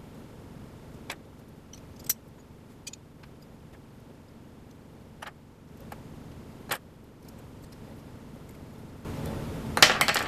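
Light metal clicks and taps as small steel screws and aluminium vacuum-pod plates are handled and fitted together with a hex key. Near the end comes a short burst of louder metal clinks and rattling.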